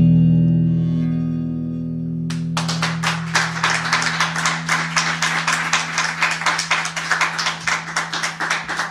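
The song's last guitar chord ringing out and slowly fading. From about two seconds in, a rapid, even clatter of sharp clicks, about five a second, runs over it.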